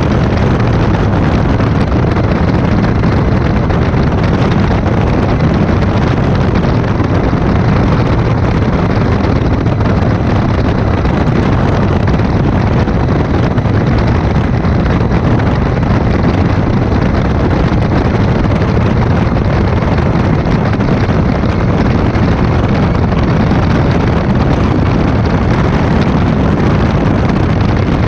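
Light aircraft's piston engine and propeller running steadily in flight, a loud even drone that holds the same pitch throughout.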